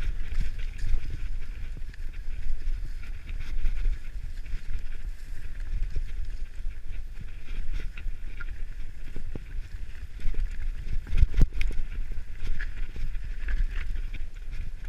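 Mountain bike running fast down a rough trail: wind rumbling on the microphone and tyre noise, with scattered rattles and knocks over bumps and two hard knocks about eleven seconds in.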